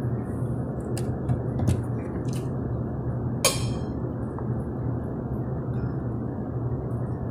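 Tableware clinking over a steady restaurant hum: a few light clicks of a fork on a plate and one sharp, ringing clink about three and a half seconds in as the syrup pitcher is picked up.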